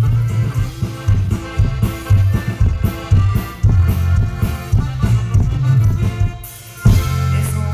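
Live band playing an instrumental passage of dance music: a pulsing bass line and drums to a steady beat. About six seconds in it thins out briefly, then the full band comes back in with a hit.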